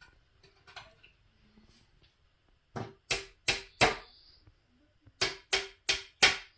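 Hammer blows: two runs of four sharp strikes, about three a second, with a short pause between the runs.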